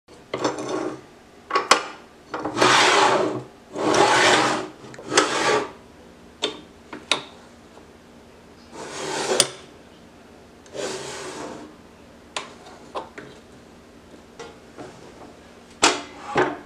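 Parts of an Evolution S355CPSL metal-cutting chop saw being handled and adjusted by hand. About five sliding scrapes, each up to a second long, mixed with sharp clicks and knocks of plastic and metal parts.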